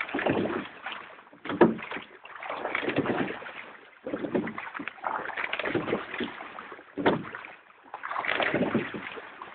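Crew rowing a sweep-oared boat: oars working the water in a steady stroke rhythm, with a surge of rushing water and oar noise about every one and a half seconds. Two sharp knocks stand out, once near the start and once about two-thirds of the way through.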